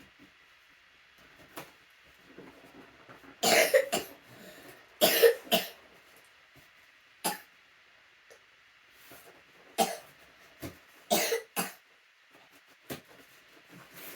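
A person coughing several times, in short sharp coughs, some of them in quick pairs.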